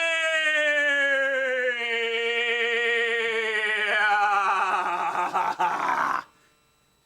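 A human voice holding one long note that slides slowly down in pitch, takes on a wide vibrato, then turns rough and growly before cutting off sharply about six seconds in.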